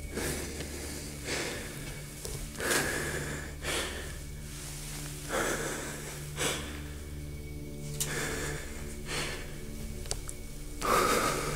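A person's slow, heavy breathing, in-and-out breaths paired about a second apart and repeating every two and a half seconds or so, over a low, steady droning music bed.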